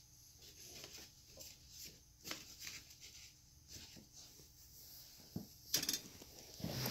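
Faint, scattered crinkles and taps of a paper bag being nudged by a bare foot, with a sharper crinkle near the end.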